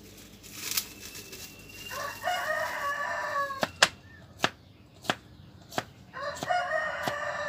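A rooster crows twice, each crow about a second and a half long and dropping in pitch at the end. Between the crows a kitchen knife strikes a cutting board in single sharp knocks, chopping garlic.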